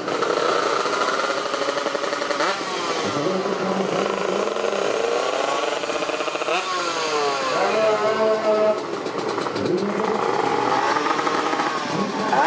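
Drag-racing underbone motorcycle engine with a dual exhaust, being revved on the stand: the revs sweep up and fall back several times.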